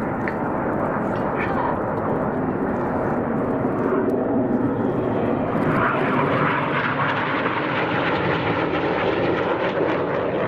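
BAE Hawk T1 jets' Adour turbofans passing overhead: a steady rushing jet noise that grows louder and brighter about six seconds in.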